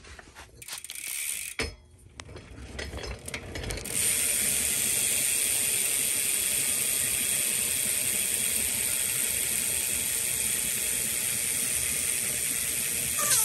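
Profile Mini BMX cassette hub freewheeling as the rear wheel spins, its pawls clicking so fast that they blur into a steady high buzz from about four seconds in. Before that come a few scattered clicks and knocks as the wheel is set going.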